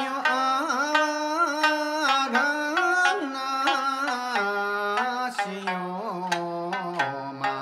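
A man singing an Okinoerabu folk song in long held notes with slides and turns in pitch, accompanying himself on a sanshin, the snakeskin-covered Okinawan three-string lute, whose sharp plucked notes sound under and between the sung lines.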